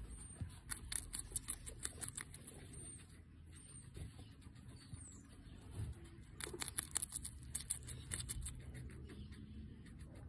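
Guinea pig biting and chewing raw red bell pepper: quick crisp crunching clicks in two bursts, the first starting about half a second in and the second around six and a half seconds in.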